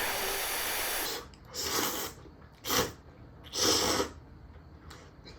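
Airy, hissing mouth-and-breath sounds of someone eating hot ramyun noodles: one long gust of about a second, then three shorter bursts.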